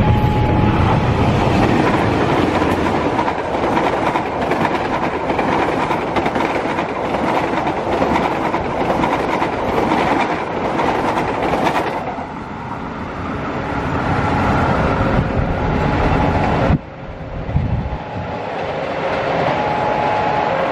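Diesel-hauled passenger train passing close by at speed: the locomotive's engine, then the coaches' wheels clattering over the rails, with the tones of a two-tone level-crossing warning alarm at the start. The passing sound eases off about 12 s in. Near 17 s it cuts to a quieter, more distant train sound, and the two-tone alarm returns near the end.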